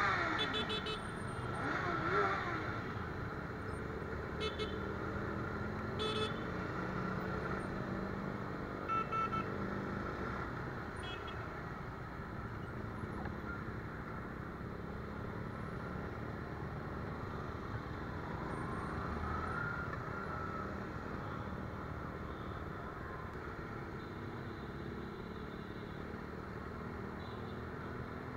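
Motorcycle riding through city traffic: steady engine rumble and wind noise, with several short horn toots from surrounding vehicles in the first dozen seconds.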